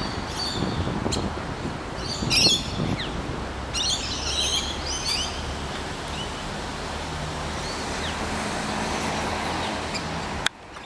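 Australasian figbird calling in three short bursts of chattering, falling notes within the first five seconds, over a steady hiss of rain and a low background rumble. A sharp click comes near the end.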